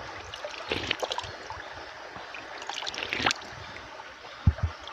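Spring water trickling and gurgling steadily out from among rocks, with a few short splashing sounds and two dull bumps near the end.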